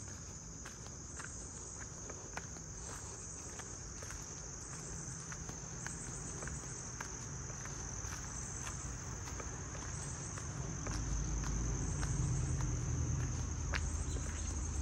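Insects chirring in a steady, high, slightly pulsing drone, with footsteps about twice a second on a gravel and paved path. A low rumble grows about two thirds of the way through.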